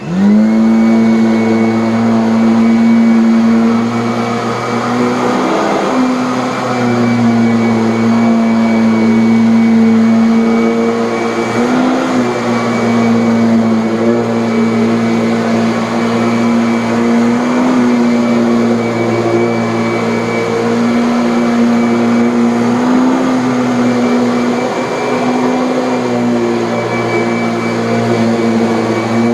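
Kirby Avalir vacuum cleaner switched on and running steadily, its stiff brush roll and Tech Drive working a firm mattress. The motor tone dips slightly about every six seconds as the load changes under the nozzle.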